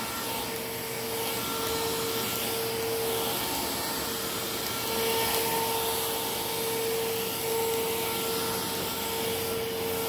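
Cordless stick vacuum with its powered brush roll on, running over carpet: a steady motor whine over the hiss of suction airflow, swelling and easing slightly as the head is pushed about.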